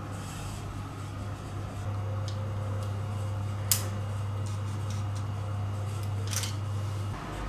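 A steady low hum that grows stronger about two seconds in and cuts off near the end, with a few sharp clicks over it. The loudest click comes just past halfway.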